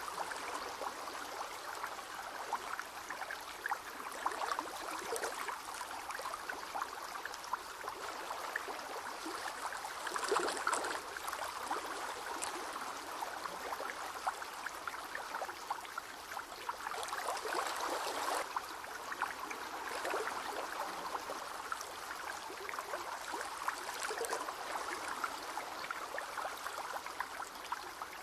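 Water trickling steadily in a shallow crab tank, full of fine crackling, with a couple of slightly louder stretches.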